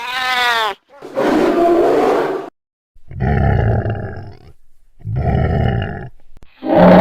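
Dinosaur roar sound effects: four separate calls of about a second each with short gaps between them, the first a high, wavering, pitched call and the rest deep, rough roars. Just before the end a louder sustained sound with a steady low tone begins.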